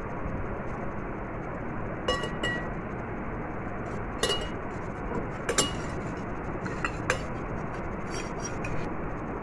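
Glass bowl clinking several times as it is handled, sharp light knocks, a few leaving a brief ring, over a steady background hiss.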